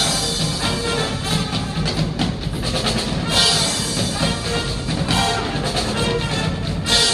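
Instrumental band music with a drum kit and brass, with cymbal crashes at the start, about three seconds in, and near the end.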